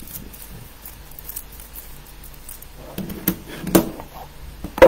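Plastic 3x3 speedcube being turned fast, a steady patter of small clicks from its layers, then a few louder knocks as it is put down, the sharpest near the end.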